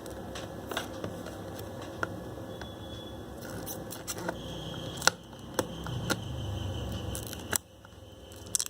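Small retail packaging being handled and opened by hand, with scattered clicks and crinkles of cardboard and plastic. One sharp click about five seconds in, then a stretch of low rubbing that stops suddenly.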